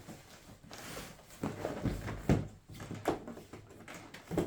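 Cardboard packaging of a model airplane being handled and opened: irregular rustling with several light knocks and scrapes.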